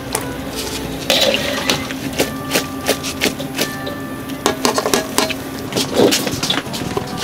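A run of sharp metal clinks and knocks as a wire-mesh skimmer scoops boiled beef tripe out of a wok and sets it into a stainless steel tray. Near the end come quick knocks of a cleaver on a wooden chopping block.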